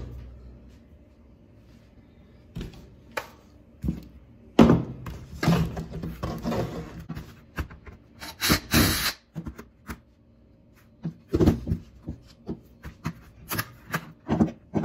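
Knocks, rubs and clicks of hand tools working on a laptop's plastic underside. A brief burst of a cordless drill-driver driving out a screw comes about eight seconds in, and sharp clicks near the end come as a flat screwdriver pries up the compartment cover.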